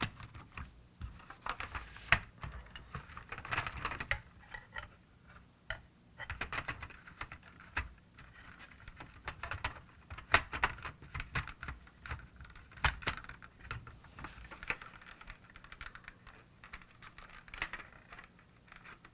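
Small plastic toy parts clicking and tapping irregularly as the activation button mechanism is handled and worked into the toy car's plastic housing.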